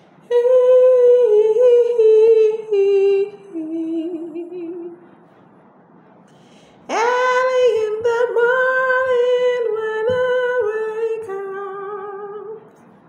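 A woman humming a wordless tune in two phrases, with a pause of about two seconds between them. Each phrase holds notes that step down in pitch, and the second opens with a swoop up.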